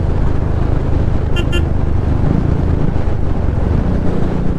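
Royal Enfield Classic 350 single-cylinder engine running under way with a steady low rumble and wind rush. A horn gives two quick toots about a second and a half in.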